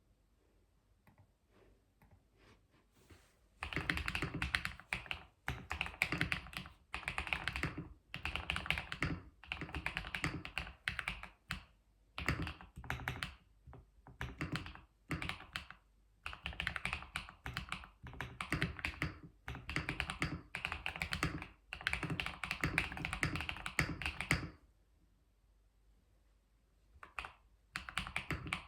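Keyboard typing, the keys clacking in quick runs of a second or two with short breaks. It starts a few seconds in after a few soft clicks, stops for about two seconds near the end, then resumes.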